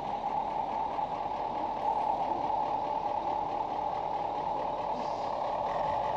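Double-decker sightseeing bus standing at a stop with its engine idling: a steady, even hum.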